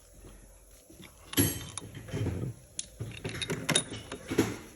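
Metallic clinking and rattling of hand tools and engine parts while the timing-chain sprocket is unbolted and taken off the engine. There are a series of sharp clinks and a clatter from just over a second in, with loud clinks at about 1.5 s and near the end.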